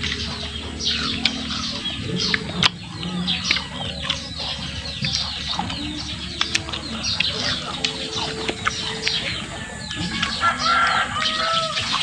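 Chickens clucking and small birds chirping in short, quick calls, with a longer wavering cluck near the end, and a few crisp bites and chewing of wax apple.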